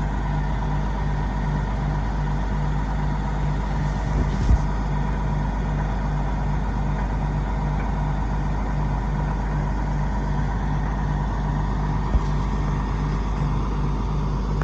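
Logging truck's diesel engine running steadily at a low idle, with a regular throb about twice a second. Two brief knocks, one about four seconds in and one about twelve seconds in.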